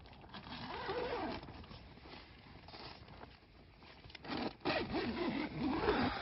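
Tent door zipper being pulled open along the curved doorway, rasping in two pulls: a short one about a second in and a longer, louder one in the last two seconds, with the tent fabric rustling as the door comes loose.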